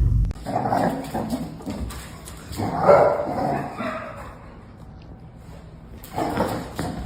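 A dog barking and whining in a few short bouts, the loudest about three seconds in.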